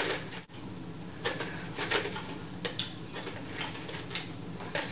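A hand rummaging in a clear jar: a few scattered clicks and rattles over a steady low hum.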